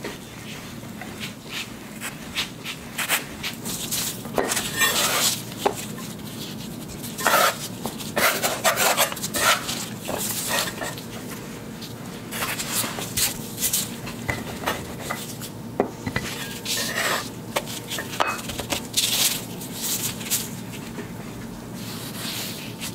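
Wooden rolling pin rolling puff-pastry dough studded with butter lumps on a floured wooden board: irregular back-and-forth strokes of rubbing and rolling noise with scattered sharp clicks and knocks.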